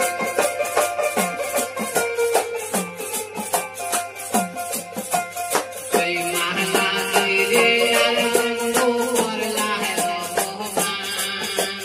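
Live folk music from a small ensemble: a rattle keeps a steady clicking beat, a hand drum plays short strokes that slide down in pitch, and a long-necked string instrument is plucked. A singing voice comes in about six seconds in.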